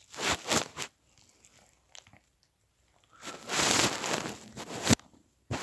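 Short bursts of rustling, crackling noise, the longest about three seconds in, ending in a sharp click near the end.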